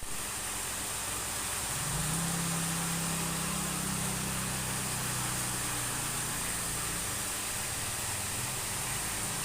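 A steady hiss with a low motor hum that swells about two seconds in and fades near seven seconds.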